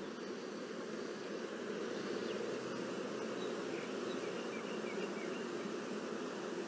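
Honey bees from an opened hive buzzing in a steady hum, thousands of bees around the brood frames.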